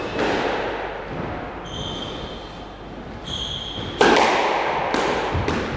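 Squash ball struck hard by a racket on the serve about four seconds in, the loudest sound, followed by quick cracks of the ball off the walls, each ringing in the enclosed court. Before the serve come two short high squeaks of shoes on the wooden court floor.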